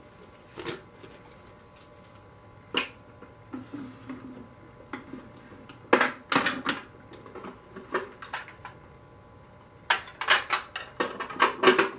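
Makeup products and containers clicking and clattering on a table as they are handled: a few single clicks, a quick cluster about halfway, and a busier run of clicks near the end.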